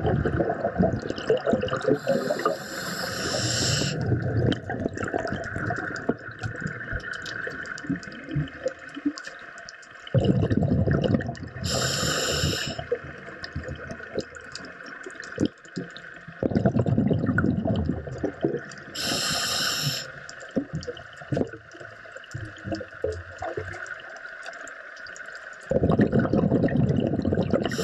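Underwater scuba breathing through a regulator: the bubbling rumble of exhaled air alternates with a short hiss of inhalation, repeating about every eight seconds.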